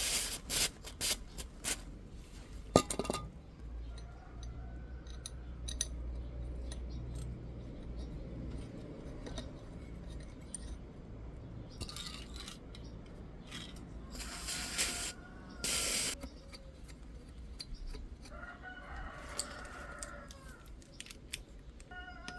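Aerosol can of copper grease spray hissing in short bursts, two close together near the middle, amid scattered small metallic tool clinks and taps. A faint pitched animal call sounds in the background a few times.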